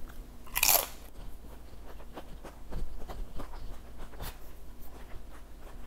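Someone eating: soft chewing with scattered small clicks and rustles, and a short hissing noise about half a second in.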